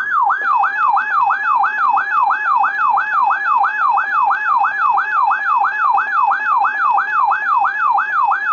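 Weather radio alert tone: an electronic alarm made of a quick falling sweep repeated about three times a second over a steady tone, with a second, higher steady tone joining about half a second in. It signals a severe thunderstorm warning about to be read.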